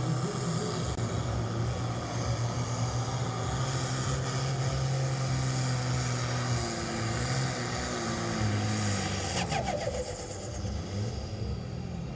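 International 1246 pulling tractor's diesel engine running hard under full load as it drags the weight-transfer sled, its note holding steady. About nine and a half seconds in, the engine note falls away as the pull ends and the tractor slows.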